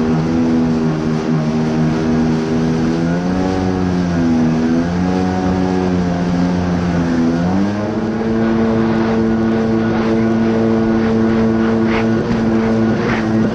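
Sea-Doo GTI jet ski engine running under way, a steady droning hum. Its pitch rises and falls a couple of times as the throttle is worked, then climbs about halfway through and holds at the higher pitch.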